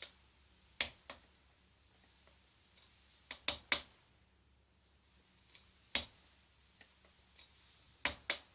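Sharp clicks at irregular intervals, some single and some in quick runs of two or three, over a faint steady background.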